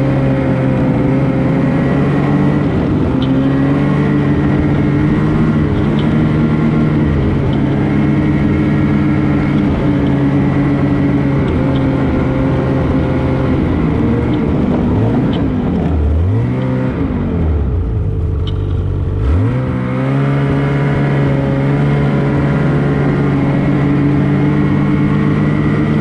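Ski-Doo XRS 850's twin-cylinder two-stroke engine running at a steady pitch under way. Past the middle the pitch drops sharply twice as the throttle comes off, then climbs back up to the steady note.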